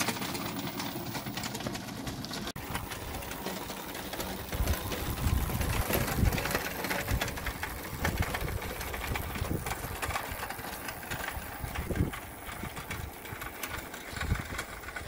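Electric go-kart driven by a car alternator converted to a motor, running steadily as it rolls along a wet tarmac lane, with tyre noise and irregular low rumbles.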